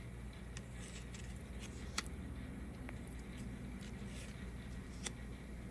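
Stacked paper cards being handled and leafed through by hand, with a few sharp light clicks as card edges are lifted and let go, over a low steady hum.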